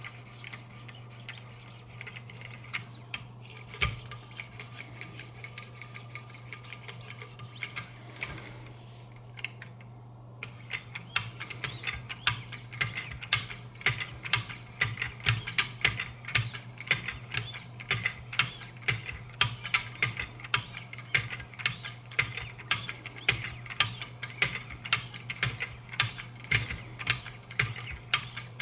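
Wicked Edge guided sharpener's 3000-grit diamond stones stroking along a knife edge, the arms clicking and scraping against the blade. The strokes are light and sparse at first, then from about ten seconds in become a steady run of about two sharp strokes a second.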